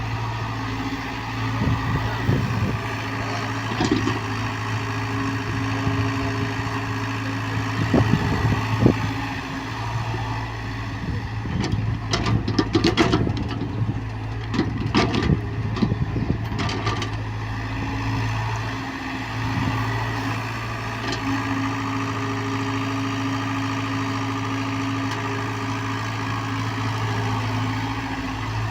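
Hyundai excavator's diesel engine running steadily at work, with a cluster of sharp knocks and clanks around the middle.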